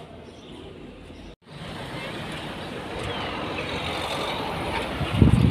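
Road traffic noise: a steady rush that swells after a sudden cut a little over a second in, with heavy low rumbles near the end.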